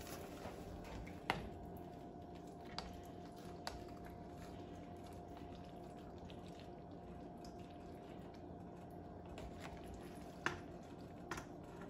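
Faint wet squishing and a few sharp clicks as cooked elbow macaroni is spooned into a pan of cheese sauce, over a steady hum.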